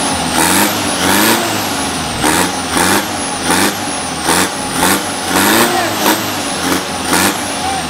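Turbodiesel drag truck engine revved in quick repeated blips, about one or two a second. With each blip the engine note rises and falls, and the turbo's high whistle shoots up, then winds down.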